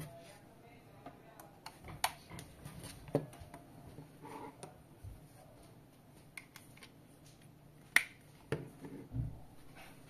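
Handling clicks and taps from a plastic multi-bay battery charger with cells in it and a braided USB-C cable, as the cells are handled and the USB-C plug is pushed into the charger. Several sharp clicks, the loudest about eight seconds in, and a dull low knock just after nine seconds.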